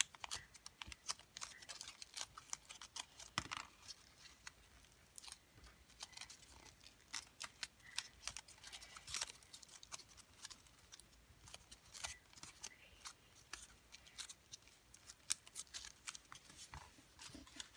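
Faint, irregular crinkling and crackling of folded colored paper as fingers press and shape the points of a modular origami star.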